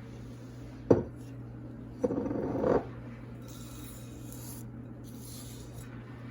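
A sharp knock, then a short rasping scrape about two seconds in, and faint rustling after it: utensil and bowl sounds as sifted dry ingredients go into a bowl of cookie batter.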